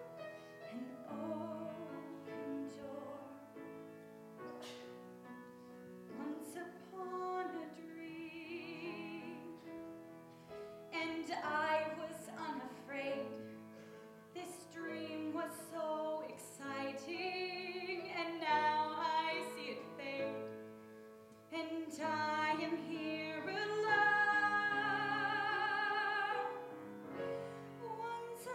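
A young woman singing a slow song in a classical, operatic style with vibrato on the held notes, accompanied by grand piano.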